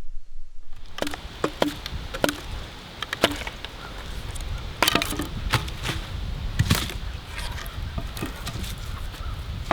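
Dry wood cracking and snapping in a quick, irregular run of sharp snaps, with a low rumble underneath.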